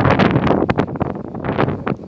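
Loud, gusty wind buffeting the microphone on an open ship's deck.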